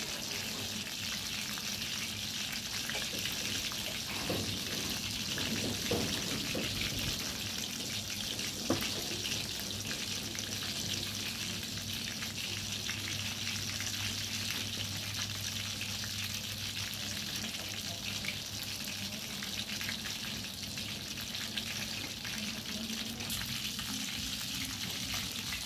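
A steady hiss with a low hum under it, and a few light clinks of chopsticks and bowls during a meal.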